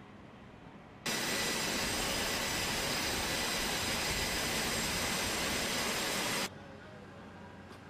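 Jet engines running on an aircraft carrier's flight deck: a loud, even rushing noise with a faint steady whine in it. It starts abruptly about a second in and cuts off abruptly about five seconds later.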